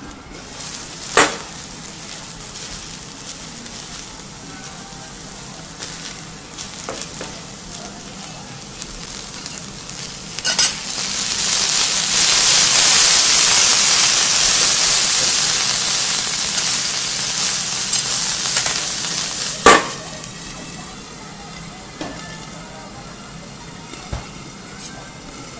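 Asparagus and butter sizzling on a steel teppanyaki griddle. The sizzle swells loudly about eleven seconds in, runs for about eight seconds and stops at a sharp knock. A few other sharp knocks sound around the quieter sizzling before and after.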